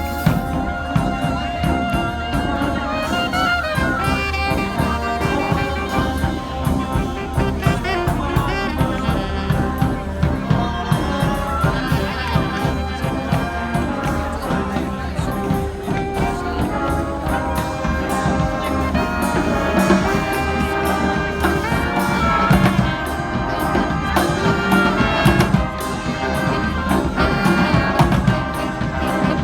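Street brass band playing a tune: horns carrying the melody over a steady drum beat.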